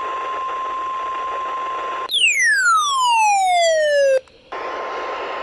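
NOAA Weather Radio 1050 Hz warning alert tone, a steady single pitch over radio static. About two seconds in it gives way to a tone that sweeps steeply downward for about two seconds; after a short break the steady alert tone resumes.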